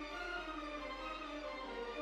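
Background music: string instruments playing slow, long-held notes.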